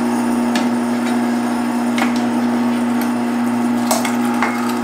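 Electric meat grinder running with a steady motor hum as venison chunks are pushed down the feed throat with a plastic stomper, coarse-grinding the meat. A few sharp clicks sound over the hum.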